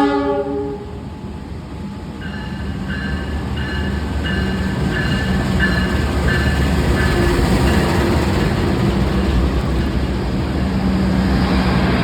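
A train running past with a steady rumble that grows louder, its horn cutting off about half a second in. From about two seconds in a ringing tone repeats about one and a half times a second over the rumble.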